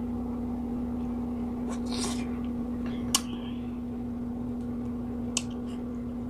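Fingers peeling a cooked shell-on shrimp: a few short crackles and sharp clicks as the shell breaks, the loudest about three seconds in, over a steady low hum.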